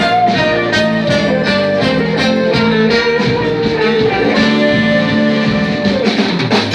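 Live band playing instrumental music with a guitar lead over a steady beat.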